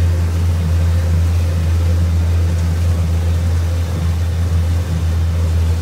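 Amusement-park family train running along, its engine giving a steady low drone.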